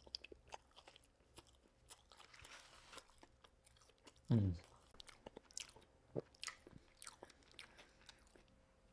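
Quiet, close-miked eating of fried fast food: chewing with small crunchy bites and wet mouth clicks. About four seconds in comes a short falling hum, like an appreciative 'mm', the loudest sound here.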